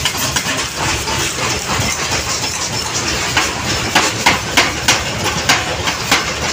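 Flywheel power press running in a forge with a steady mechanical noise, joined from about three and a half seconds in by a quick, irregular series of sharp metal clanks.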